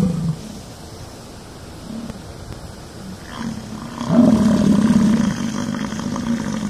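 American bison bellowing: after a quieter stretch, a long, low roar starts about four seconds in and holds for a couple of seconds.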